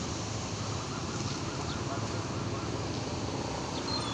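Steady outdoor street noise: traffic hum and wind on the microphone, with faint distant voices.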